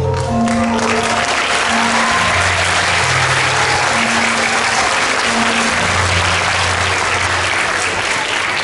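Audience applauding, starting about half a second in, with music playing underneath.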